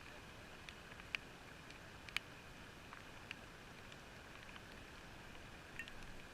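Steady, muffled outdoor hiss heard through a GoPro's sealed watertight housing, with scattered sharp ticks, the loudest about a second and about two seconds in.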